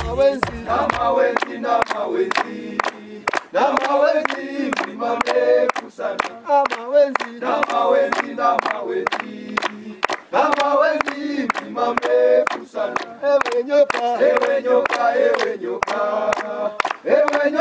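A group of men singing a Swahili song together in chorus, clapping their hands in a steady beat.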